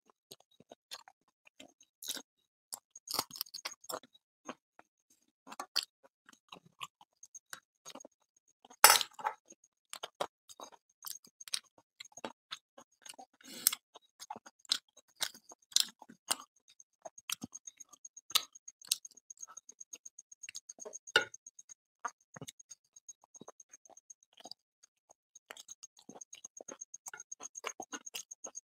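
Close-miked chewing and mouth sounds of a man eating luchi (puffed fried bread) and curry with his hands. There are irregular soft clicks and crackles as the bread is torn and the fingers touch the plate and bowls. The loudest snap comes a little before nine seconds in.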